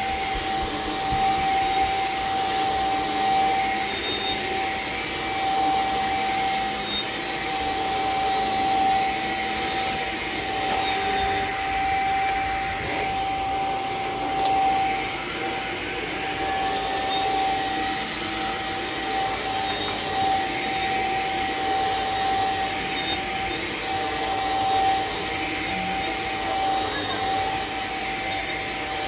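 Cordless stick vacuum running steadily while its powered floor head is pushed back and forth over carpet: an even suction rush with a steady high motor whine, swelling slightly with the strokes.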